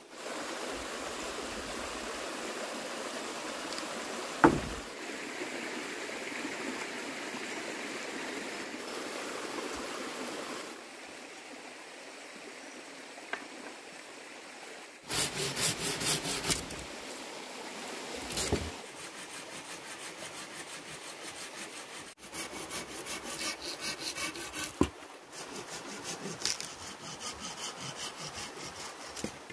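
Hand saw cutting wood in quick, regular back-and-forth strokes, in several separate stretches through the second half. The first part holds a steady rushing noise with one sharp knock about four and a half seconds in.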